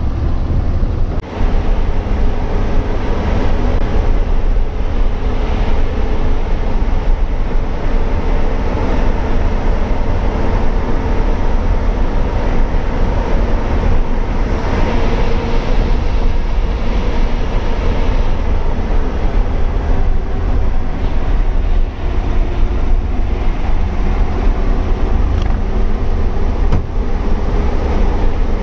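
A TNSTC bus's diesel engine running under way with road noise, heard from on board as a steady, loud drone.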